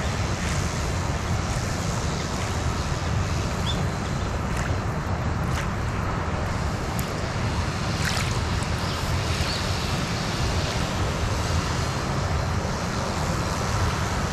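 Wind buffeting the microphone: a steady low rumble with a hiss above it.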